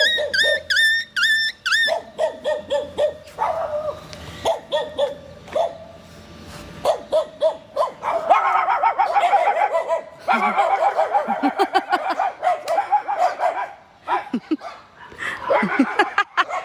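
Several rural mongrel dogs barking. It opens with a quick run of high yips, a dense chorus of overlapping barks follows about halfway through, and there are more barks near the end.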